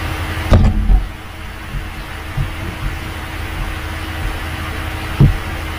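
A steady low hum with two dull thumps, one about half a second in and one near the end.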